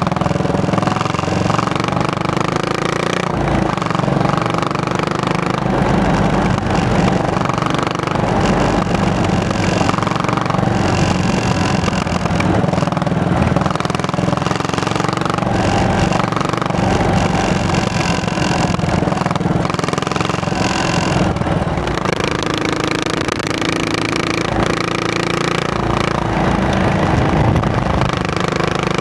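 Single-cylinder motorcycle engine running while riding, its pitch rising and falling with throttle and gear changes.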